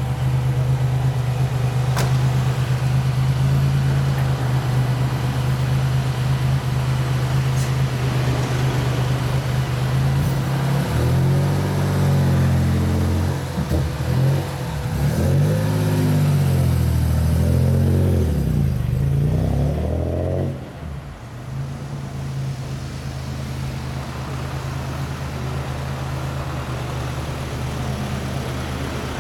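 Nissan Fairlady Z (Z31 300ZX) engine breathing through aftermarket headers and a one-off exhaust, idling with a steady deep note. About a third of the way in it is revved several times, the pitch rising and falling with each blip. Past the middle the sound drops away as the car pulls off.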